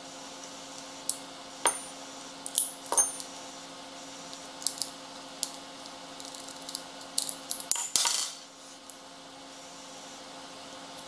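Irregular light metal-on-metal clinks and taps, about a dozen, from small steel differential parts being worked on while the spider gear assembly is taken apart. A short scrape comes about eight seconds in, over a steady low hum.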